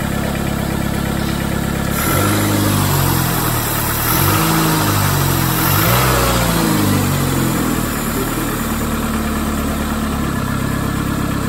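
Peugeot 206's four-cylinder engine running just after its first start following a cylinder head job, revved up and down a few times between about two and eight seconds in, then settling back to idle. The exhaust is rather loud, which the mechanic puts down to a leak, probably in the middle muffler.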